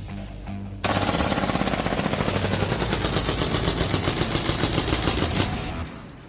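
Krytac Kriss Vector gas blowback airsoft gun firing a long full-auto burst: a fast, even rattle of shots that begins about a second in and fades out near the end.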